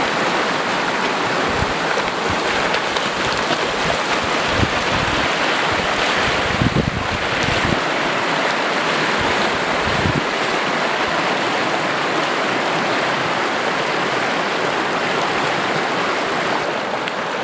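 Rushing river water, a steady, even hiss, with a few brief low rumbles of wind on the microphone near the middle.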